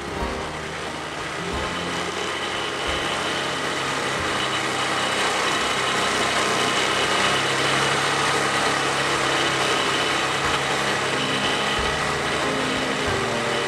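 An engine running steadily, growing louder about four seconds in.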